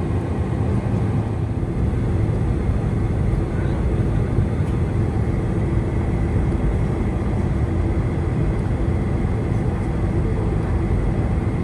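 Steady cabin noise inside a Boeing 747-400: an even low rumble of the engines and airflow, with no rise or fall.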